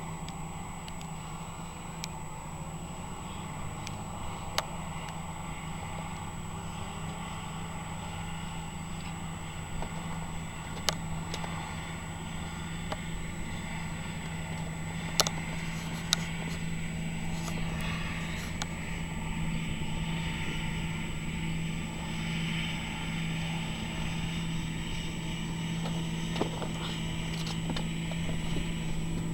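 Farm machinery engine running steadily at an even speed, with scattered sharp clanks and clicks; the noise grows a little louder about halfway through.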